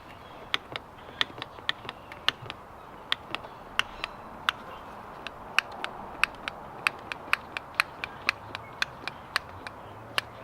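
Hand ratchet clicking in a steady string of sharp clicks, about two or three a second at uneven spacing, as it winds the screw-driven piston out of a rear brake caliper.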